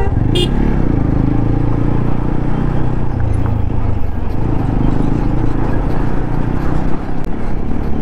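TVS motorcycle engine running steadily under way, with wind rumbling on the microphone.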